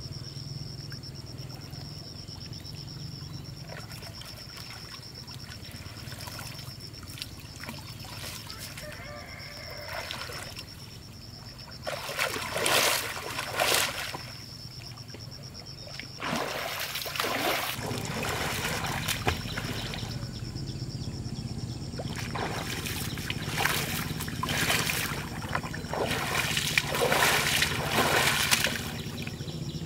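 Pond water splashing and sloshing as a person wades chest-deep and works the water with her hands. The first half is quieter; bouts of splashing start about twelve seconds in and come thickest near the end.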